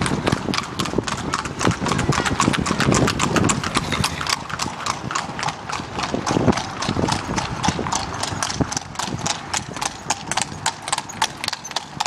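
Trotting ponies pulling sulky carts, their hooves striking the asphalt in a fast, even clip-clop of about five strikes a second.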